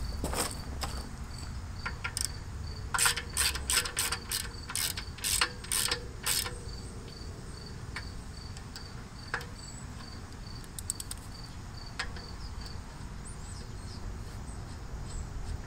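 Hand ratchet wrench clicking in a quick run of about eight strokes a few seconds in, with a few single clicks later, as bolts are snugged up. A cricket chirps steadily in the background throughout.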